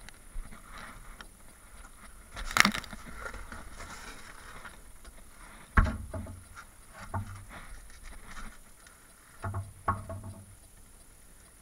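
Scattered knocks, clunks and scraping from people moving about and handling things in an empty building, with a sharp knock about two and a half seconds in, another near six seconds, and two close together near the end.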